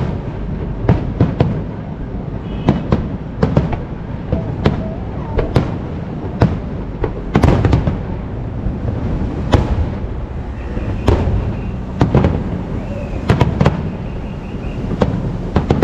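Aerial fireworks shells bursting in a steady barrage: sharp bangs about one or two a second, over a continuous low rumble of overlapping explosions.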